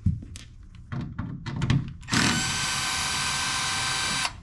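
Power drill with a 1/4-inch nut driver backing out the screws that hold a refrigerator's water inlet valve. A few clicks and knocks, then the drill runs steadily for about two seconds and stops abruptly.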